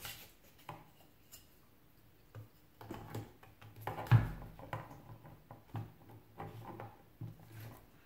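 Scattered light clicks and knocks of tools and circuit-board parts being handled on a workbench, with one louder thump about four seconds in.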